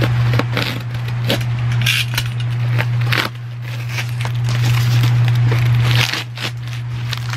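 A heavily taped cardboard box being cut open with a box cutter and handled: tape and cardboard crackling and scraping in short strokes, and the box being shifted and tipped up, over a steady low hum.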